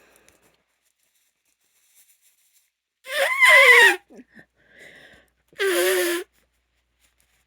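A woman sneezing twice, loud and voiced: the first sneeze about three seconds in falls in pitch, and the second follows about two and a half seconds later, with a fainter breath in between.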